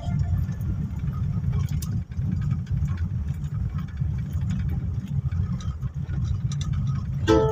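Low, steady rumble of a vehicle engine running.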